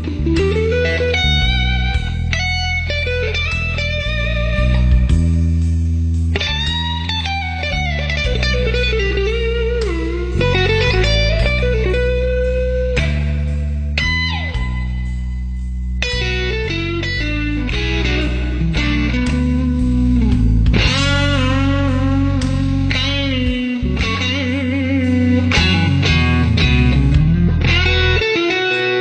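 Music: an electric guitar playing a lead line with bent and sliding notes over a low bass line.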